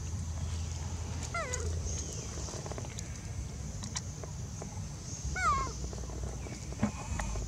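Two short animal calls, each falling in pitch, about four seconds apart.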